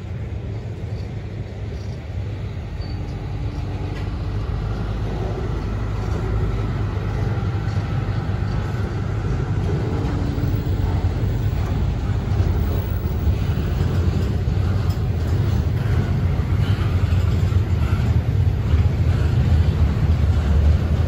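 Florida East Coast Railway intermodal freight train rolling by: a steady low rumble that slowly grows louder, with faint thin tones above it.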